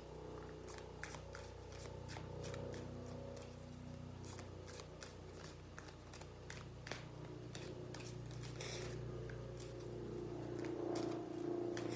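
Tarot cards being shuffled and handled: a steady stream of quick, light papery clicks and flicks over a low steady hum.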